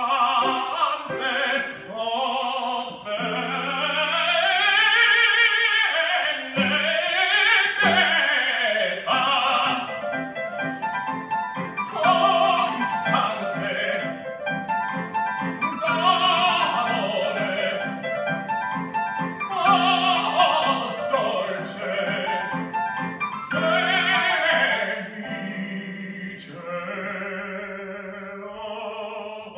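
Male opera singer singing an aria with vibrato, accompanied on a digital keyboard playing piano.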